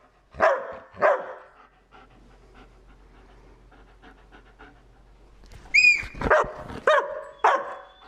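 Dog barking: two barks about half a second and a second in, then after a few quiet seconds a short high-pitched cry followed by a run of three barks.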